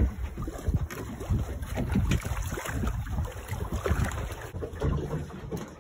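Wind buffeting the microphone in uneven gusts, with seawater sloshing against a small boat's hull.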